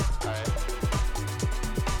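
Background music: an electronic track with a steady, even beat and dropping bass notes.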